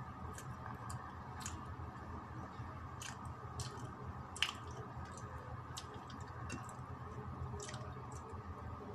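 A person biting and chewing an egg tart, with soft, scattered mouth clicks and smacks; the loudest comes about four and a half seconds in. A steady low hum sits underneath.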